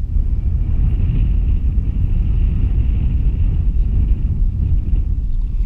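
Wind buffeting the microphone on an open fishing boat at sea, a steady uneven low rumble.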